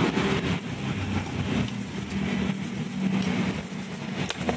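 A motor vehicle engine running steadily close by, with a single sharp click near the end.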